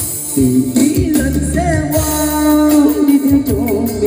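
Arranger keyboard played live: a lead melody voice with bends and vibrato over bass and drum backing, as the song's instrumental intro.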